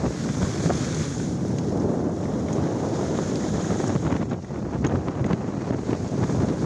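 Wind rushing and buffeting over a camera microphone carried downhill at speed on a ski slope. The noise is dense and gusty, sits low in pitch, and eases briefly a little past halfway.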